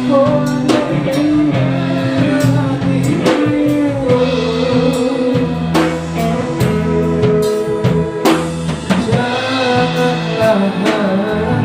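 Band music in a passage without lyrics: a guitar carries the melody over bass and drum kit.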